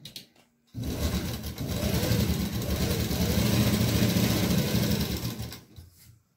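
Sewing machine stitching gota trim onto fabric with a fast, even rhythm. It starts about a second in and winds down to a stop near the end.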